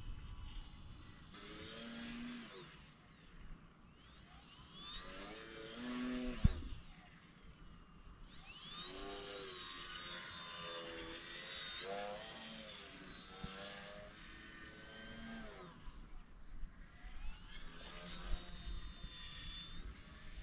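Electric RC model plane (a Fun Cub) flying overhead: its motor and propeller whine rises and falls in pitch several times as the throttle changes and the plane passes, with low wind rumble on the microphone and one short thump about six seconds in.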